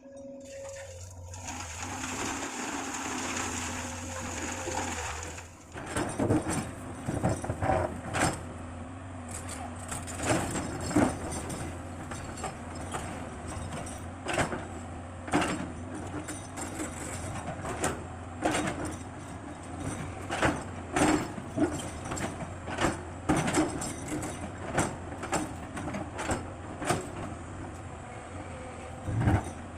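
Komatsu PC200 excavator at work. Its diesel engine runs steadily, with a hiss over it for the first few seconds. From about six seconds in, it is broken by repeated sharp clanks and knocks at irregular intervals, roughly one or two a second, as the machine works.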